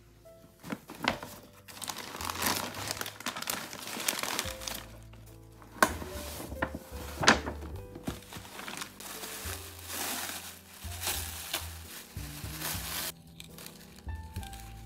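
Packaging being handled, crinkling and rustling with a few sharp clicks, the loudest about seven seconds in, over background music with a steady bass line.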